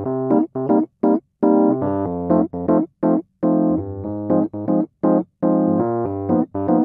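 Electric piano music: short chords and notes played in a bouncy, stop-start rhythm with brief silences between phrases.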